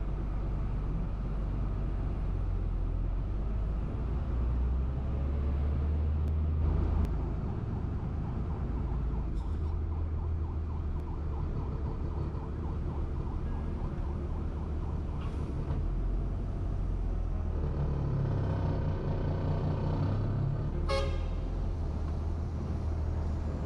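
Truck engine running steadily, heard from inside the cab. For a few seconds near the end a pitched, several-toned sound rises over it, followed by a sharp click.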